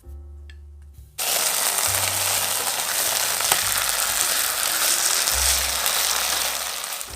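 Food sizzling loudly in a hot frying pan, a dense even hiss that starts abruptly about a second in and fades near the end, over soft background music.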